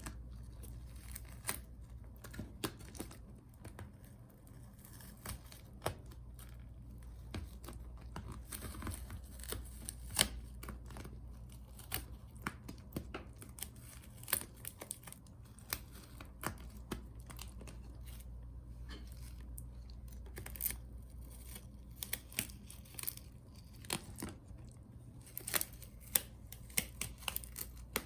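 Irregular small clicks, scrapes and peeling sounds of hand tools and adhesive being worked on an opened laptop, over a low steady hum. The clicks come more often in the last few seconds.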